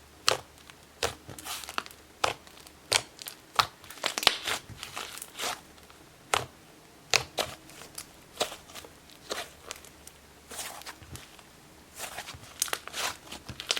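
Slime being squeezed and stretched by hand, giving off irregular sharp pops and crackles as trapped air bubbles burst.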